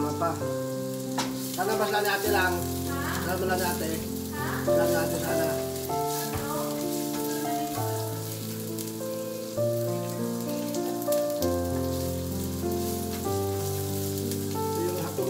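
Sliced onions and ginger sizzling as they fry in oil in a frying pan, stirred with a spatula, under background music with a bass line.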